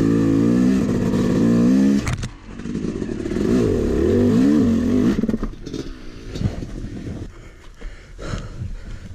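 Yamaha YZ250 single-cylinder two-stroke dirt bike engine running hard, its revs rising and falling from about three to five seconds in, then dropping back to a low idle. A couple of short knocks follow near the end.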